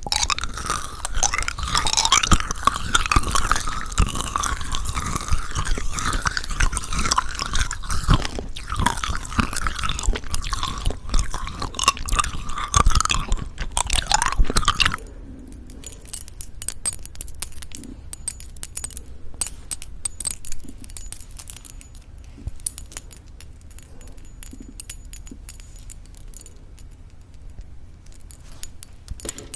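Close-miked eating of crunchy sugar-coated plum chewing jelly candies. There is dense crackling and crunching for about the first half, then it thins to scattered small clicks and mouth sounds.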